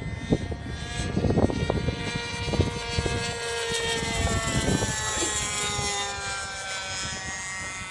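Radio-control sport planes' engines droning in flight, their propeller note sliding down in pitch as they pass by.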